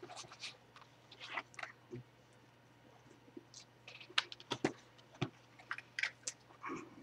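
A person chewing a mouthful of ghost chili peppers with closed lips: irregular wet smacks and crunches, thickest about four seconds in.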